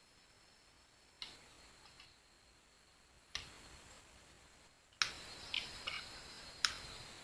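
Sharp, irregular clicks and knocks, about seven of them, sparse at first and bunched together in the last two seconds.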